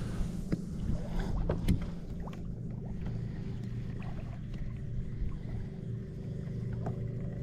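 Steady low rumble of water and air around a fishing kayak, with a few light clicks and knocks in the first couple of seconds.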